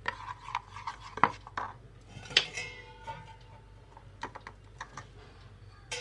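Metal spoon and strainer clicking and knocking against a bowl of batter as it is stirred and soya chunks are tipped in. One sharper clink about two and a half seconds in rings briefly.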